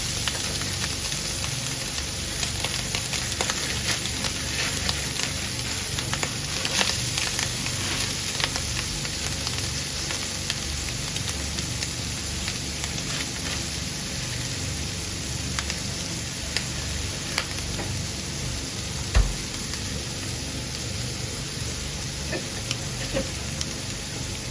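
Food sizzling steadily in a frying pan, with small clicks of a utensil stirring it and one sharper knock against the pan about three-quarters of the way through.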